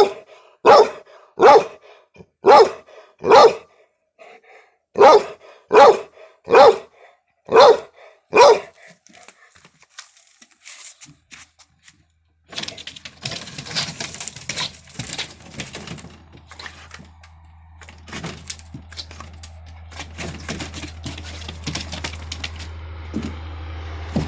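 A dog barking about ten times in a steady series, then stopping. From about halfway there are rustling and knocking noises over a steady low hum.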